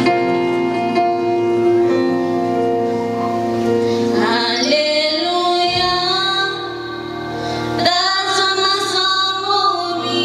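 Church worship song: sustained instrumental chords, then a woman's lead vocal comes in about four seconds in and carries the melody over the accompaniment.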